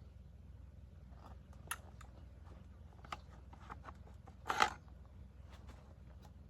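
Scattered clicks and clacks of the metal parts of a PKM machine gun being handled during stripping and cleaning, the loudest a slightly longer clack a little after four seconds in.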